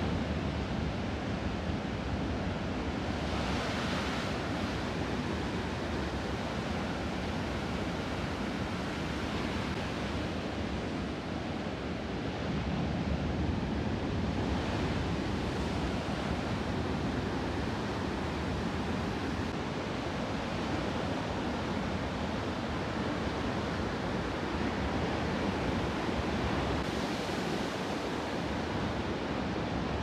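Ocean surf: a steady rush of breaking waves, growing a little louder three times as waves break.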